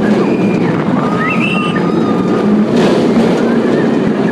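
Hulk roller coaster in motion: a loud, steady rumble of the train with wind rushing over the microphone. Riders scream briefly about a second in.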